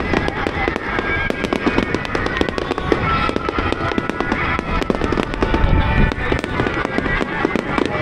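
Aerial firework shells bursting in rapid, continuous succession, a dense run of bangs and crackles, with music playing over it.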